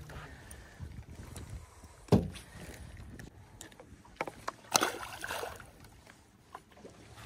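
A single sharp knock about two seconds in, then a few clicks and a short splash a little past the middle as a small bass is tossed back into the lake.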